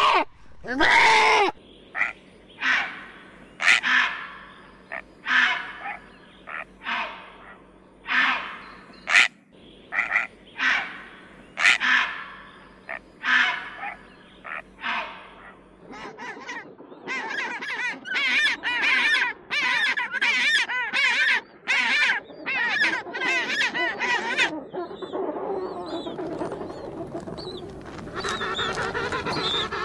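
Ducks or geese calling: single honking calls at about one a second, then from a little past halfway a fast run of calls from several birds that blends into continuous flock chatter.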